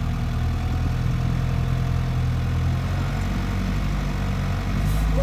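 Mitsubishi Jeep's engine running steadily at low revs, heard from inside the cab.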